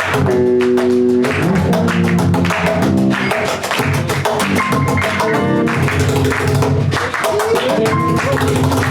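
Live band playing: sustained guitar chords over a fast, steady drumbeat, no singing.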